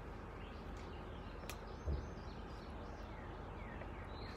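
Quiet outdoor background noise with a few faint chirps, and a single soft thump about two seconds in.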